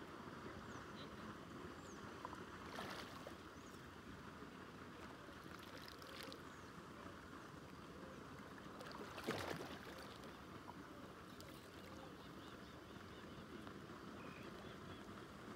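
Steady lakeside background hiss, with a short swish-and-splash about nine seconds in from a baitcasting rod being cast and its float landing in the water, and a fainter brief sound near three seconds.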